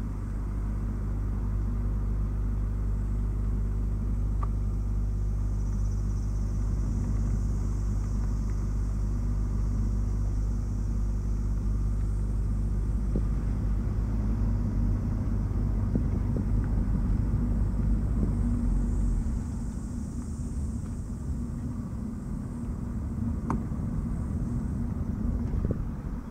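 Nissan Note e-Power's 1.2-litre three-cylinder petrol engine running at a steady speed as a generator while the car drives, with road and tyre noise underneath. About three-quarters of the way through, the low drone eases off and gets quieter.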